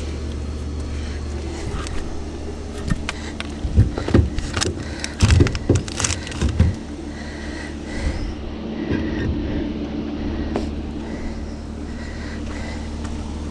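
Concrete cinder blocks knocking and scraping as they are handled and set in place, with a cluster of sharp knocks in the middle, over a steady low mechanical hum.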